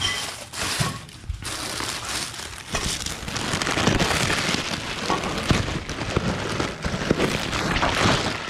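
Plastic mailer bag crinkling and rustling as it is handled right against the microphone: a dense crackle with scattered knocks.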